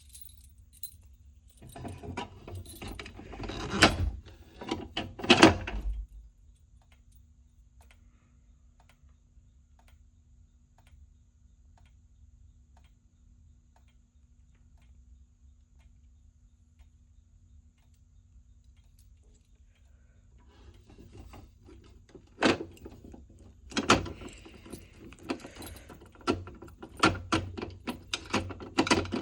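Handling clatter of a Notifier BNG-1 manual fire alarm pull station under an STI Stopper cover: clicks and knocks for about four seconds as it is pulled. Then a faint steady low hum for a quarter of a minute, then more sharp clicks and rattling like keys near the end.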